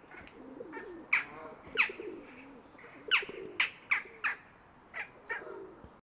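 Jackdaw calling: about eight short, sharp calls that sound like the bird's name, coming singly or in quick pairs.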